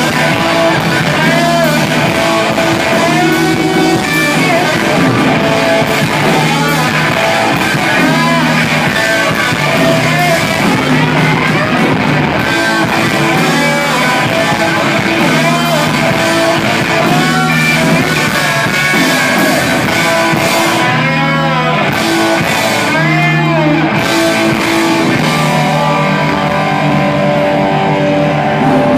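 A rock band playing live and loud: electric guitars, bass guitar and drum kit.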